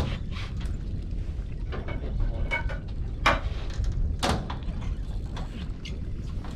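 Wind rumbling on the microphone, with two sharp knocks about three and four seconds in and a few fainter clicks.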